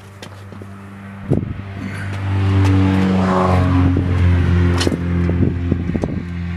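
A motor hums, then speeds up over a couple of seconds and keeps running loudly and steadily, with a sharp knock just over a second in and scattered clicks.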